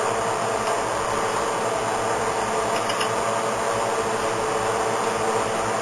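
Steady mechanical hum, like a room fan or air-conditioning unit running, with a few faint short clicks about three seconds in.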